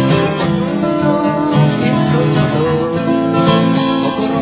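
Acoustic guitars playing an instrumental passage of a folk song, heard in an off-air FM radio recording.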